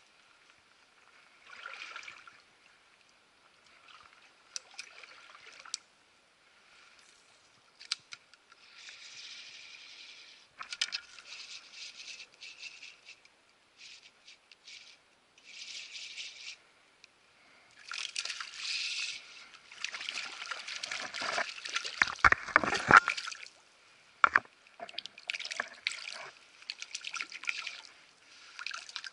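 Water trickling and splashing in a small creek, coming and going in short stretches. About twenty seconds in, a louder run of splashes and deep thuds comes.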